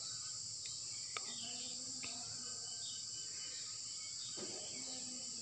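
Steady high chirring of crickets, with a few faint clicks of a knife slicing lotus stem into a steel bowl.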